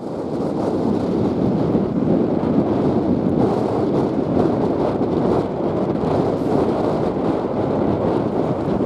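Four-engined British Airways Boeing 747-400 passing overhead at go-around thrust as it climbs away after an aborted landing: a steady, heavy jet rumble mixed with gusty wind buffeting the microphone.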